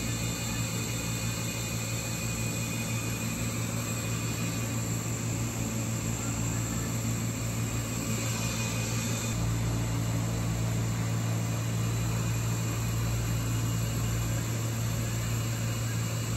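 Steady low machine hum with an even hiss, typical of aquarium pumps and air handling running. The hum grows a little stronger about halfway through.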